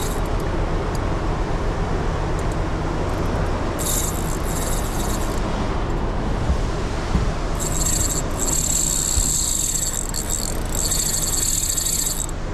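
A spinning reel buzzing in high-pitched spells while a fish is fought on the rod, about four seconds in and again for several seconds from about eight seconds in, over a steady low engine hum.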